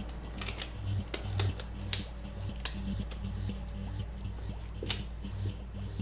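Low, droning background music with scattered sharp clicks and taps at irregular intervals.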